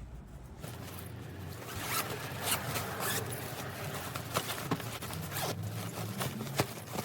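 Zipper on a soft luggage bag being pulled open around the bag, rasping unevenly with many small clicks as the slider moves along the teeth.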